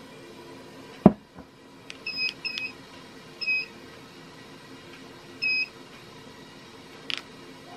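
Fanimation Drone DC ceiling fan's receiver beeping in answer to remote button presses: four short, high beeps, the first two close together. A sharp thump comes about a second in, before the beeps.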